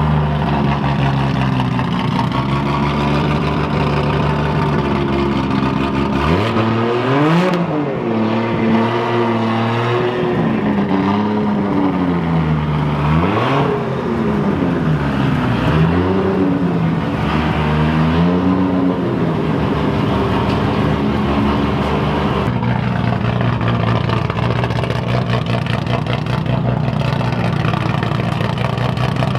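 A car engine idling, then blipped up and down several times in quick succession before settling back to a steady idle, echoing in a parking garage.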